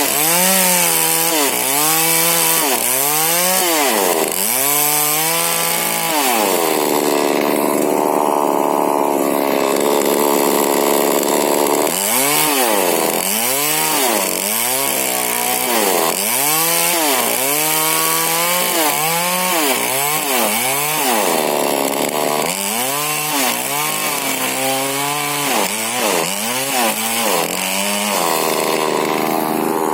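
Husqvarna 40cc two-stroke chainsaw with a modified exhaust, revved over and over in quick throttle blips and held at a steady speed for several seconds a few times, once about a fifth of the way in and again near the end.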